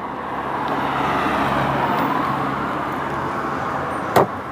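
A motor vehicle running close by, a steady rumble that swells about a second in and then eases slightly, with one sharp click near the end.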